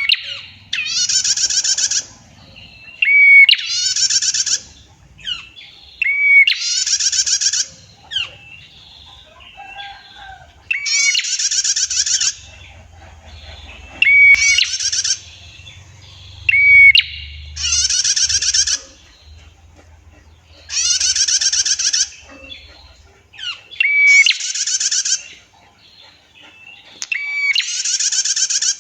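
Female prinia (prenjak) singing its long buzzy 'tiir' trill over and over. Each trill lasts about a second, is usually led by a short clear note, and comes every two to three seconds, with fainter chirps in the gaps.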